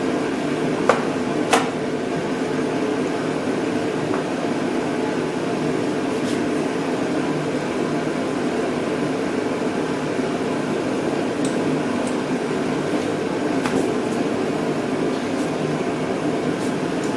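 Steady, even hum of a ventilation unit such as a fan or air conditioner, with two light clicks about a second in and one more later on.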